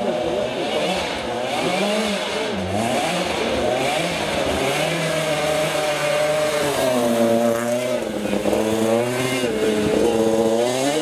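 Historic rally car engines revving hard as the cars pass at speed, the pitch climbing and dropping again and again through gear changes.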